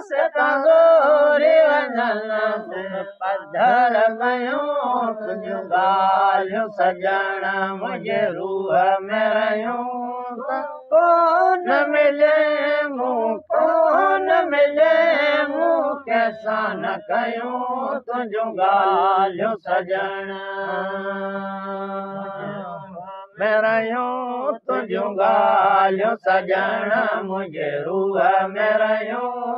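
Men's voices chanting a Sindhi maulood (mahlood), unaccompanied devotional singing, in long wavering melodic lines. One note is held steady for a few seconds about two-thirds of the way through.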